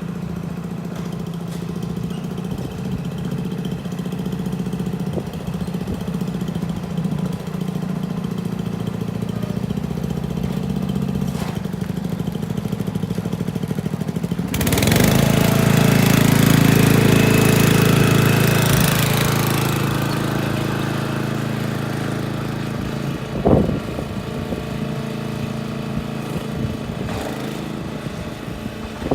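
An engine running steadily. About halfway through it grows louder and harsher for around five seconds, as if revved or put under load, then eases back. A brief sharp sound comes near the end.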